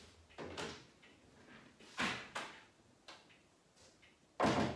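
The lid of a grand piano being lifted open and set on its prop stick: a few wooden knocks and scrapes, the loudest knock near the end.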